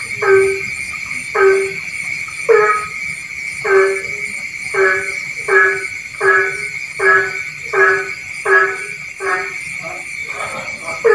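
Frogs calling at night with short, honking croaks, about one a second and slightly quickening, over a steady high-pitched drone.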